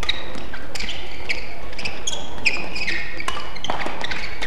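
Badminton rally: sharp racket hits on the shuttlecock every half second to a second, mixed with short high squeaks of court shoes on the floor.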